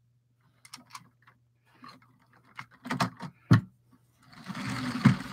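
LEGO plastic parts clicking and knocking as hands handle the train cars, a scatter of light clicks followed by about a second of rustling near the end.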